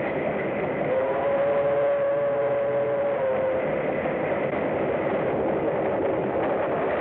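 Steam train running, a dense continuous rumble and clatter from the film's old soundtrack. About a second in, a steady tone sounds over it for roughly two and a half seconds.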